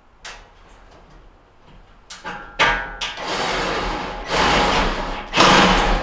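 Metal scraping and rattling from the sheet-metal frame of a gas range and its corner mounting screws as they are fastened. A short click comes about a quarter of a second in, and the sustained scraping starts about two seconds in and grows louder toward the end.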